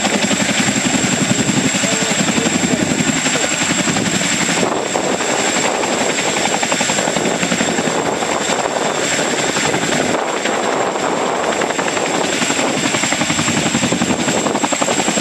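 Boeing CH-47 Chinook's tandem rotors and turboshaft engines running loud and steady in a low hover, with a rapid, even rotor-blade chop and a steady high whine over it.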